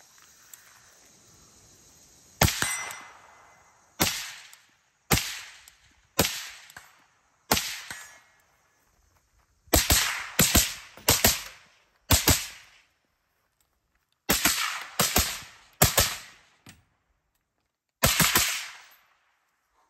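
Suppressed rifle firing through a DDC Enticer S suppressor: about fifteen shots, some spaced a second or so apart and some in quick strings of two or three, each a sharp crack with a short echoing tail.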